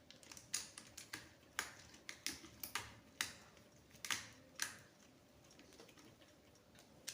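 Irregular sharp clicks and taps of hand wiring work at a contactor's terminal, about a dozen, stopping about five seconds in.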